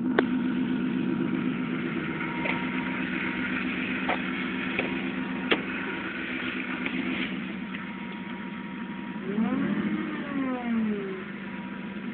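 A motor vehicle's engine running steadily, with a few sharp clicks and a brief rise and fall in pitch a little past the middle.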